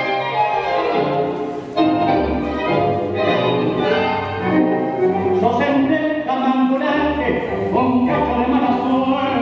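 Recorded milonga music with a singer's voice over the band, played through the hall's speakers.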